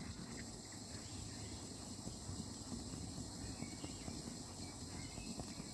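Small handheld torch running with a faint, steady hiss as it heats a solder-seal heat-shrink connector until the solder ring melts.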